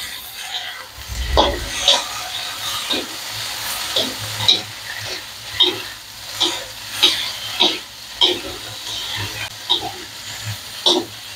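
Wood ear mushrooms and aromatics sizzling in a steel wok while a metal spatula scrapes and clinks against the pan in irregular stir-frying strokes.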